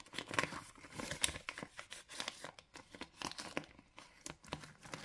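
Irregular rustling, crinkling and light clicks of paper and plastic being handled: cash envelopes and banknotes being moved about and stuffed.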